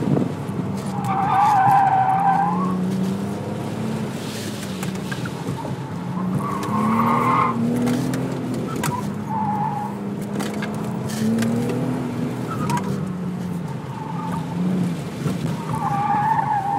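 Car engine pulling hard through an autocross course, its pitch rising and falling with each burst of throttle and lift, heard from inside the car. The tires squeal through the corners several times, loudest about a second in and again near the end.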